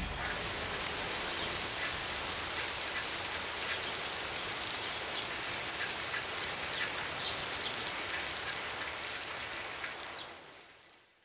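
A steady hiss with faint scattered ticks, fading out near the end.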